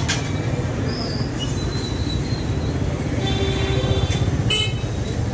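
Street traffic close by: a steady low rumble of car engines moving slowly through a crowded street, with a few short high-pitched tones over it.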